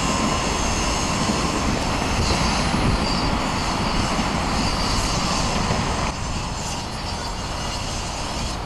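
Steady rumble of heavy traffic on a multi-lane urban highway, heard from a bridge above it; the sound drops a little about six seconds in.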